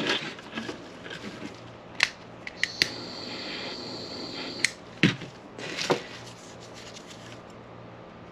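A few sharp snips and clicks as the end of a nylon starter rope is cut off and handled, over a low steady hum.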